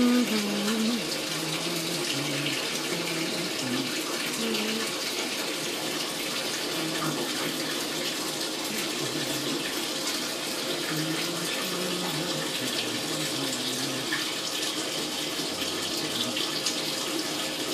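A steady rushing hiss, with faint distant voices underneath it.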